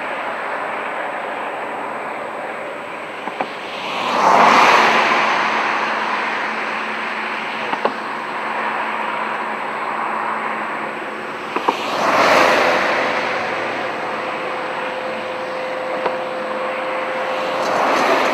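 Steady traffic noise with vehicles passing, swelling past three times, about 4, 12 and 18 seconds in, with a few small clicks.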